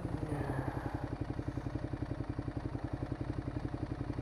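Ducati Multistrada 1200's L-twin engine idling steadily with an even, rapid pulse while the bike stands still.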